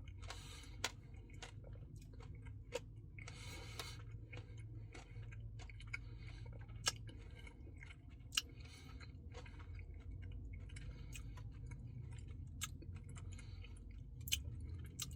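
Close-up chewing and wet mouth sounds of a person eating a Salted Caramel Truffle Blizzard, with a few sharp clicks scattered through, over a steady low hum.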